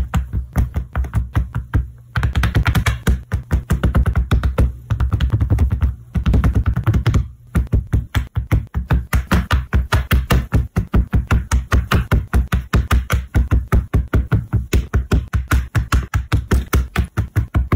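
LEGO pieces being set down one after another on a mat: a rapid, fairly regular run of plastic taps and clicks with a low thump under each, stopping briefly a few times.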